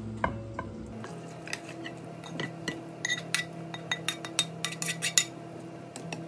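Stir-fried greens being tipped out of a dark pan into a ceramic bowl: a metal utensil scraping and clinking against the pan and bowl in a quick irregular run of sharp clinks.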